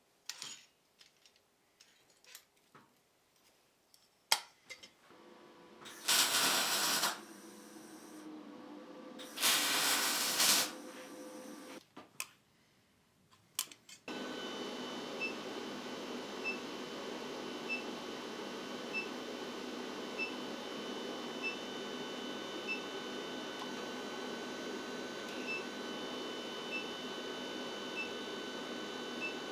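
Induction forge switched on about halfway through and running steadily: a hum with a high whine and faint regular blips about every second. Before it, a few handling clicks and two short hissing bursts.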